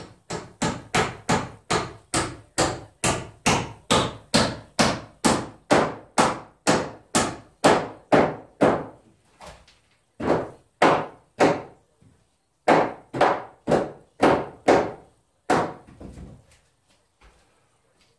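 Hand hammer striking repeatedly on wood framing: a fast, even run of blows, a little over three a second, for about nine seconds, then three blows and a second run of about eight.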